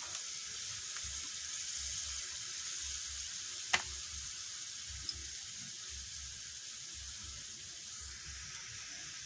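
Wok of squid adobo in soy sauce and vinegar simmering with a steady sizzling hiss, the just-added vinegar cooking down. One sharp click a little under four seconds in.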